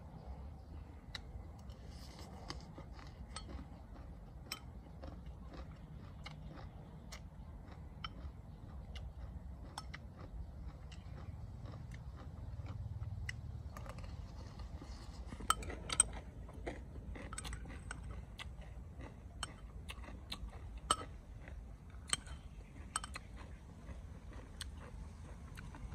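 Someone eating: quiet chewing, with cutlery clicking and clinking against a dish, a few sharp clinks in the second half.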